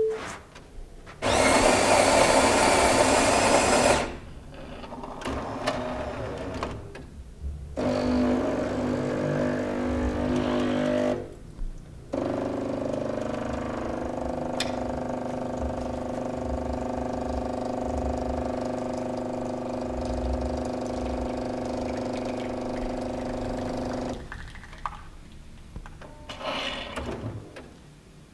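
A small electrically driven machine runs through its working cycle. A loud rushing noise lasts about three seconds, then come stretches of steady whining hum made of several tones, the longest about twelve seconds, before it dies down near the end.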